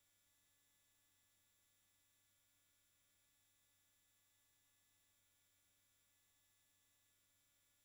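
Near silence: a silent film soundtrack with only a very faint, steady electronic hum of many thin tones.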